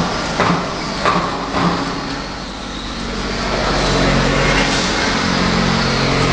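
Hydraulic tyre baler running, with a few sharp knocks in the first two seconds and a steady machine hum building up from about halfway through.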